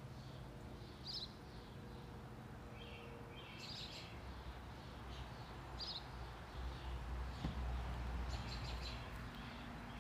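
Small birds chirping in short, scattered calls over a low, steady rumble.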